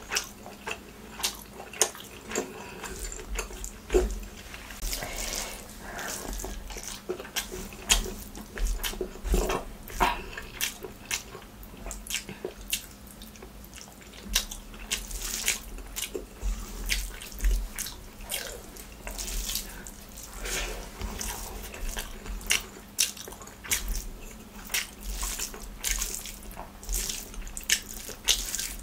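Close-up wet eating sounds: fingers squishing and mixing rice with curry, and chewing and lip smacks, in a dense run of sharp wet clicks.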